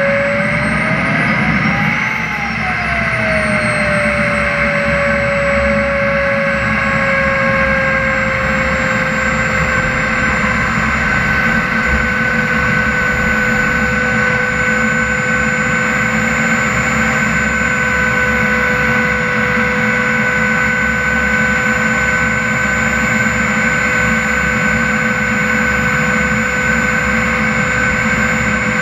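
Small turbine engine of a CARF Viper model jet running on the ground, a loud steady whine over a rushing exhaust noise. About two seconds in it briefly rises in pitch and falls back, then drifts slightly lower and holds at idle.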